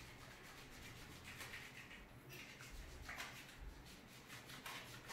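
Soapy hands rubbing together as the backs of the hands are scrubbed during handwashing: faint, in several separate strokes.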